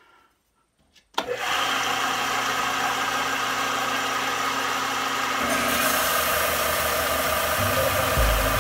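A 1993 benchtop belt and disc sander switched on about a second in, its motor running steadily. About halfway through, a brighter hiss joins as the steel saw-blade knife is put to the abrasive.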